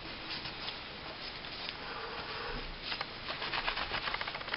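Rag rubbing and scraping over the disassembled pistol's parts while drying off the solvent: a faint scuffing at first, then a quick run of small scratchy clicks in the second half.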